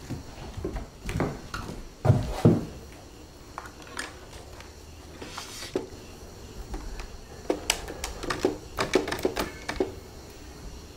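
Scattered knocks and clicks of objects being handled, loudest a second or two in, with a quicker run of short clicks near the end.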